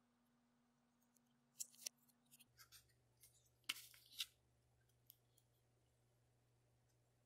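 Faint, short snips and clicks from small hand tools, in scattered groups with the loudest cluster about four seconds in.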